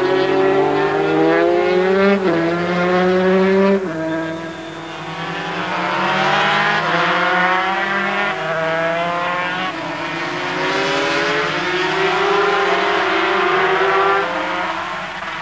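Several 250 cc two-stroke Grand Prix racing motorcycles racing past at full throttle, their engines rising in pitch and dropping sharply at each gear change, fading near the end.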